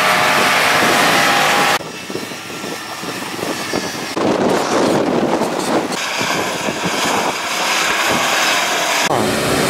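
Off-road 4x4 SUVs' engines running as they crawl over rocky mountain tracks, heard in a run of short clips. The sound changes abruptly four times, a little under 2 s in, about 4 s in, about 6 s in and near the end.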